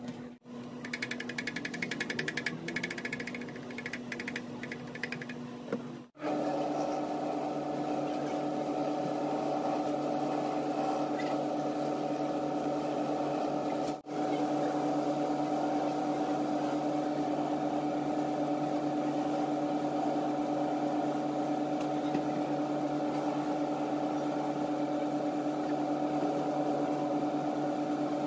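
Snips cutting through a rubber shoe sole, a quick run of short cuts. About six seconds in this gives way to a shoe finishing machine's motor and sanding wheels running with an even, steady hum.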